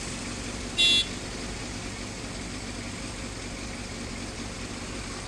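A motorcycle engine idling in stopped traffic, with one short, high-pitched vehicle horn toot about a second in.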